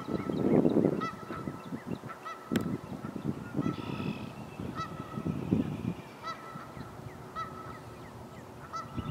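Canada geese honking, loudest in the first second, with a small bird's short chirps repeating about once a second and a brief higher trill about four seconds in.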